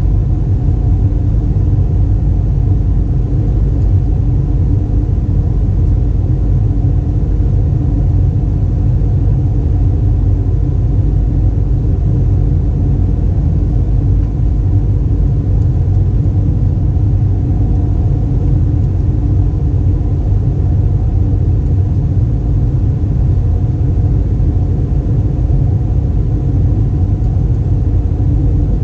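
Steady cabin rumble inside an Airbus A320: engines and airflow, an even low roar with a faint steady hum and no changes.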